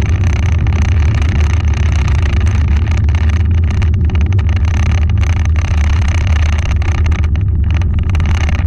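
Dodge Challenger 392 Hemi Scat Pack's 6.4-litre V8 heard from inside the cabin during a top-speed run. It gives a loud, steady low drone under a constant rush of wind and road noise, holding a steady pitch with no audible gear change.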